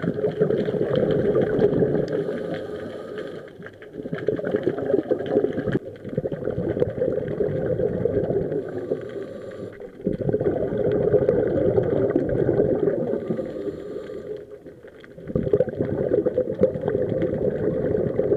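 Scuba diver's exhaled bubbles from the regulator, heard underwater: bubbling in long bursts of a few seconds each, separated by short quieter gaps as the diver breathes in, several times over.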